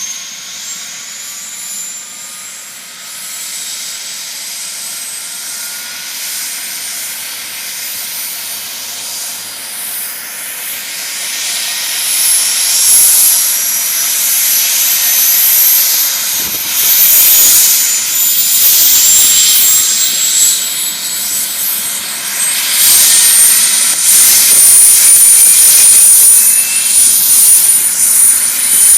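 Medical helicopter's turbine engine starting up: a high whine that rises steadily in pitch while the noise grows louder as the engine spools up, loudest in the second half.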